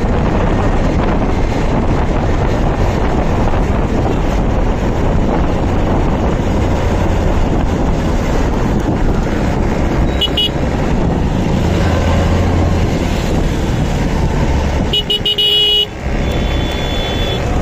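Wind and road noise from a moving motorcycle in highway traffic, with a vehicle horn tooting briefly about ten seconds in and sounding again for a couple of seconds near the end.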